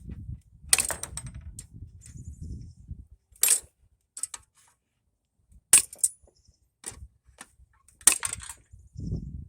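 Steel wheel spokes being cut one after another with cutters: four sharp metallic snaps a couple of seconds apart, with light clinking of metal between them.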